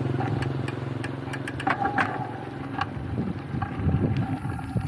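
A small motorcycle engine running past, its steady low note fading after the first second or two, with wind buffeting the microphone and a few sharp ticks and rattles.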